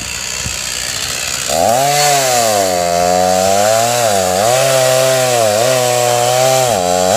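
Small petrol engine starting up about a second and a half in and running, its speed rising and falling unevenly.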